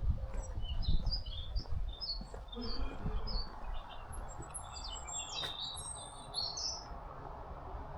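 Small birds chirping: many short, high chirps in quick succession that stop near the end, over a low outdoor rumble.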